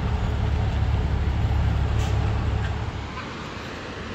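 Car on the move: a steady low rumble of road and wind noise, which drops about three seconds in to a quieter, even rushing of river rapids.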